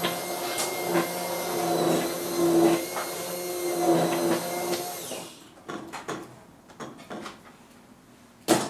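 Electric stick blender running in a pot of soup with a steady hum for about five seconds, then switched off, followed by a few light clicks and knocks.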